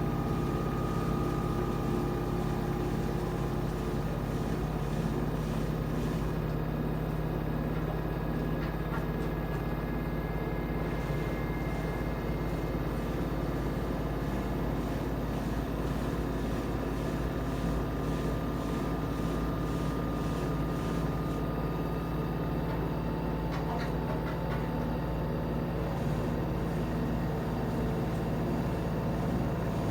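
LG 13 kg washer-dryer in its spin cycle, the drum speeding up toward its top speed of 1250 rpm: a steady hum with several thin whining tones that drift slowly in pitch.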